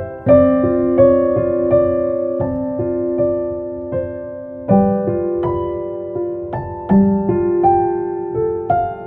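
Gentle background piano music: slow chords with a simple melody of single notes over them, each note struck and left to fade.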